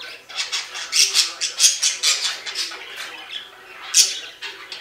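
Pet budgerigars chattering in a quick run of harsh, high-pitched squawks, with the loudest single squawk about four seconds in.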